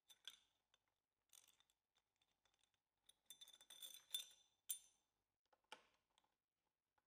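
Faint clinks and scrapes of small metal parts as a screwdriver and a steel plate with its screws are fitted to a hot-air welder's pressure roller. They come in a few separate bursts, with a busier run of clinks about three to five seconds in that holds the loudest strikes.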